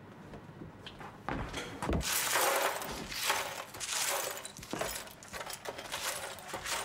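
Shards of a smashed glass thermos-flask liner being swept up with a broom: scraping, clinking strokes across the floor about once a second, starting about a second in.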